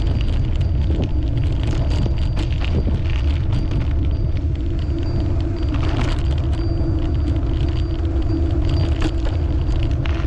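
Wind rumbling on the microphone of a camera carried on a moving bicycle, with steady road and tyre noise and frequent small clicks and knocks.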